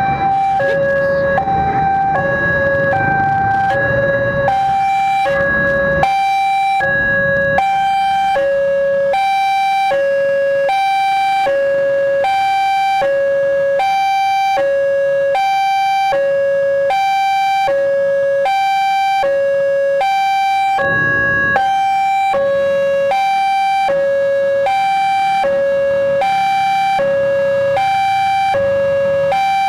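Railway level-crossing warning alarm sounding its electronic two-tone signal, a high and a low note alternating about every 0.8 seconds: the crossing is closed for an approaching train. Engine noise from waiting motorbikes and traffic runs under it for the first several seconds and returns briefly about two-thirds of the way in.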